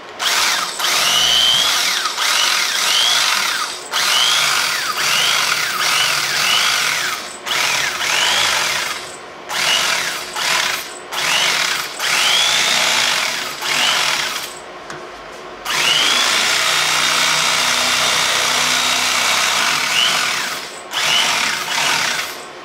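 Corded electric carving knife running as it cuts through a foam case insert. It is switched on and off about ten times in runs of one to three seconds, each start with a short whine as the motor spins up, and one longer run of about five seconds near the end.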